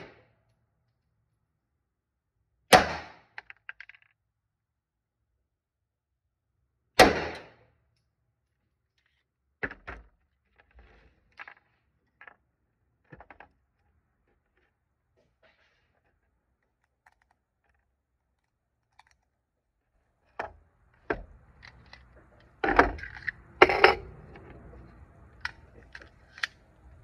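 Two Glock pistol shots, about four seconds apart, each a sharp crack with a short echo off the walls of an indoor range. Light clicks and clatter of the gun being handled at the bench follow. Near the end there is a cluster of louder metallic knocks.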